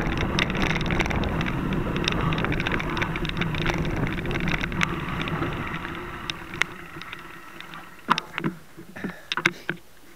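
Mountain bike rolling over a narrow dirt trail, heard through its mounted camera as a steady rumble with lots of small rattling clicks, fading away about six seconds in as the bike slows. A few sharp clicks and knocks near the end.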